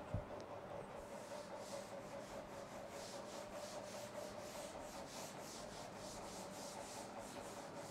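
Cloth wiping chalk off a chalkboard in quick back-and-forth strokes, about three rubs a second, starting about a second in. A soft thump comes right at the start, and a faint steady hum runs underneath.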